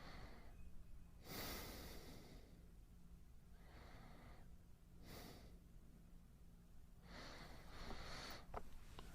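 A man breathing slowly and softly close to the microphone, several breaths in and out, over a faint steady low hum.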